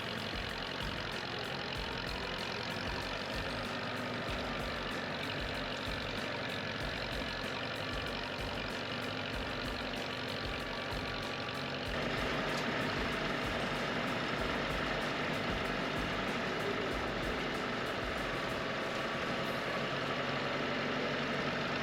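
Engine of the vehicle pulling a hayride wagon, running steadily as the ride moves along; it gets a little louder about halfway through.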